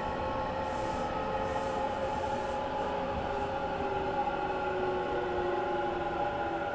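Hanshin 1000 series electric train running, heard from inside the passenger car: wheel and track rumble under the whine of its traction motors and inverter. The whine holds several tones at once, which drift gradually lower in pitch, as when the train slows toward a station.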